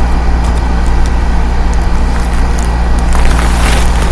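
Steady low rumble of a car heard from inside the cabin, with a short hiss about three seconds in.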